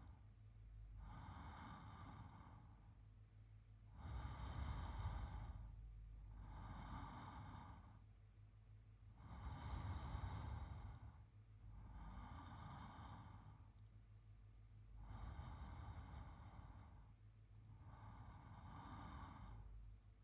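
A man's slow, even sleeping breaths, close to the microphone: soft inhales and exhales in turn, about one full breath every five to six seconds.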